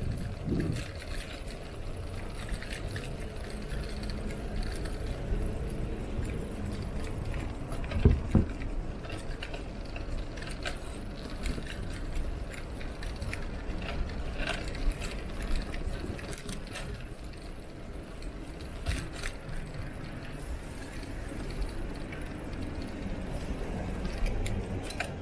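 Riding noise of a Trek cross bike: a steady low rumble of tyres and wind, with small clicks and rattles from the bike throughout and a couple of thumps about eight seconds in.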